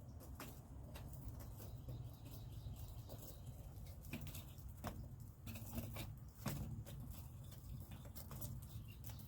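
Rain dripping and pattering: scattered, irregular light taps of drops, several a second, over a faint steady low rumble.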